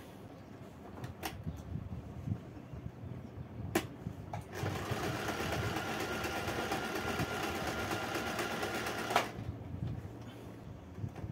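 Acme 565 oscillating-hook domestic sewing machine stitching. Its motor whine and the fast, even needle strokes start about four and a half seconds in and stop suddenly about nine seconds in. Two sharp clicks come before it starts.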